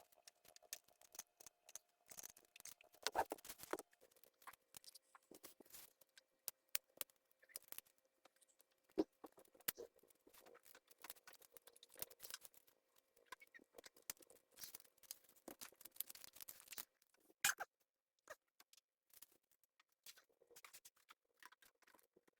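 Faint, irregular clicks, taps and scratches of small hand tools and parts being handled on a monitor's circuit board during capacitor replacement, with a few sharper snaps in between.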